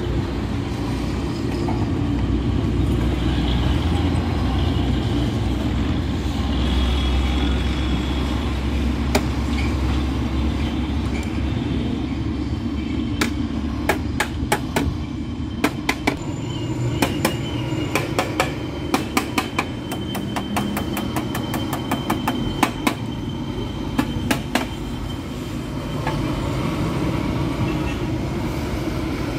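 A steady low machine rumble underneath, joined from about halfway by a run of sharp, irregular light hammer taps on the metal of a radiator's top tank, at times several a second.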